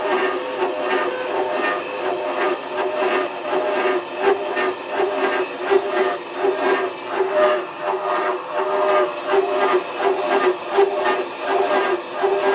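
Homemade slitting saw on a milling machine cutting a slot in a metal hinge blank, giving a loud, shrill, pulsing chatter that sounds bloody awful. The machinist thinks it may be taking too heavy a cut.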